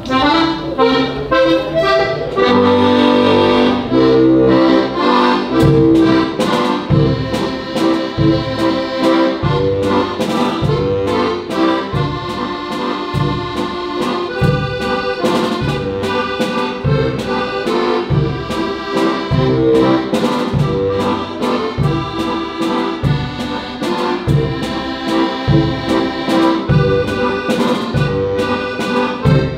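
Diatonic button accordion playing a lively traditional folk tune, accompanied by a drum kit keeping a steady beat with bass drum and cymbals.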